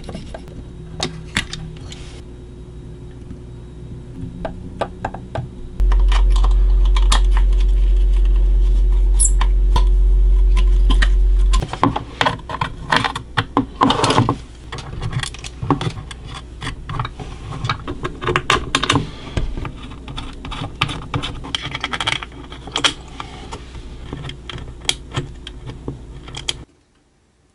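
Small metal hardware (nuts, washers, screws, a potentiometer) clicking and clinking as it is handled and fitted by hand, with many short taps throughout. A loud low hum comes in about six seconds in and stops suddenly about six seconds later.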